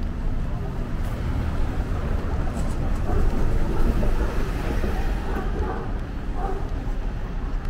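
City street traffic: a steady rumble of passing vehicles, swelling somewhat around the middle as a vehicle goes by.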